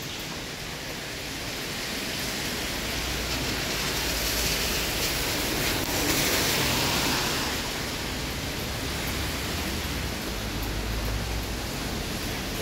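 Steady hiss of wet-street outdoor ambience, with rain and water on the road, swelling for a few seconds in the middle and then settling.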